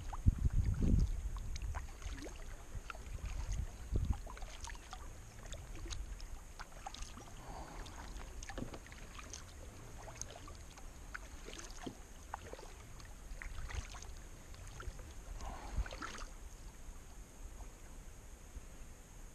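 Kayak being paddled: paddle blades dipping and water splashing and dripping, with scattered small clicks and a few low thumps near the start and about four seconds in.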